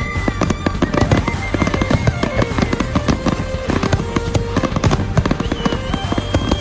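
Fireworks crackling and banging in a dense, rapid, irregular string, over music with long held notes.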